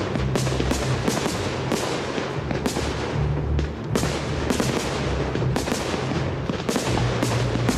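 Large fireworks display: an uneven run of sharp bangs and crackles from bursting shells, a couple a second, with music playing underneath.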